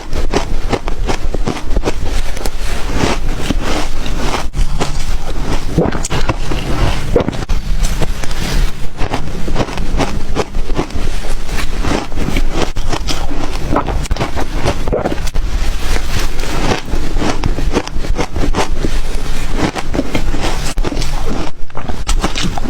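Crunchy ice being bitten and chewed: a dense, continuous run of crunches and crackles with no pauses.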